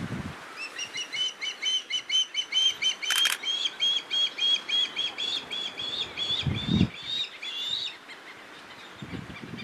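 Osprey fledgling's food-begging call: a long, rapid series of short, high whistled notes, about four a second, getting slightly higher and louder before it stops near the end. There is one sharp click about three seconds in.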